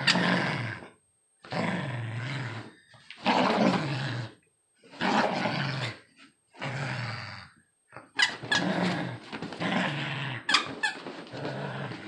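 A puppy play-growling in repeated bursts of about a second each with short pauses between, while tugging and shaking a plush toy; the growls run together more in the second half.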